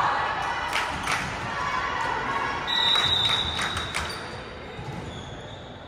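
Basketball bouncing on a hardwood gym floor in a large hall, several separate thuds, with a thin high squeak about three seconds in.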